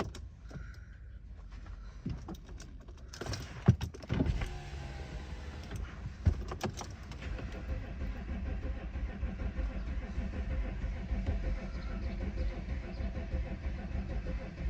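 Audi A6 allroad's 3.0 TDI V6 diesel being started from cold: a few clicks, then the starter cranks about three seconds in and the engine catches, settling to a steady idle. It is a hard start, put down to low compression on cylinders 5 and 6.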